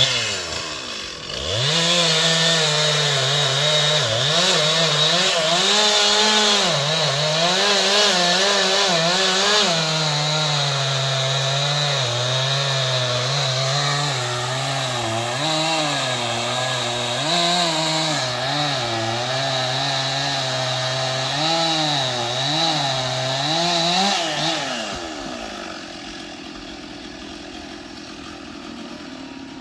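Stihl MS 881 two-stroke chainsaw at full throttle cutting into wood, its pitch dipping and recovering as the chain loads up in the cut. About five seconds before the end it drops back to a lower, quieter running.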